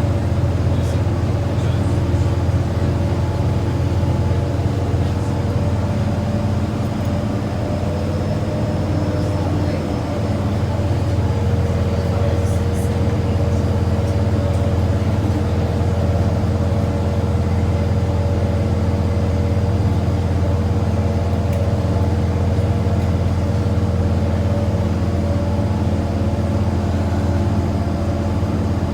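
Boat engine running steadily, a constant low drone with a steady hum above it.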